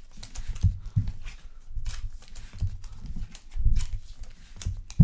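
Trading cards being handled, giving an irregular run of soft knocks and light taps, with one sharper knock near the end.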